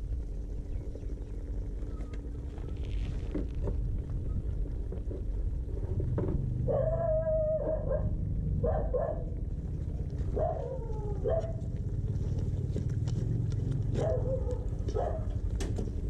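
A dog yelping and whining in short high-pitched calls, about five of them from roughly halfway through, some sliding in pitch, over a low steady rumble.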